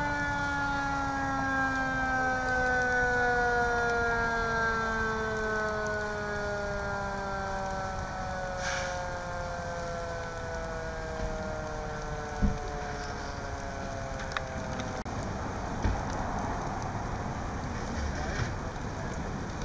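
A fire engine's siren winding down in one slow, steadily falling tone that dies away about three-quarters of the way through. Under it a burning vehicle crackles steadily, with a few sharp pops in the second half.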